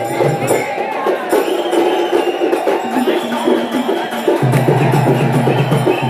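Loud live procession band music: held melody notes, each lasting a second or two, over fast, clattering percussion.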